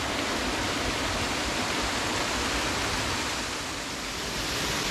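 Steady, even rush of water from a forest waterfall, easing slightly for a moment about four seconds in.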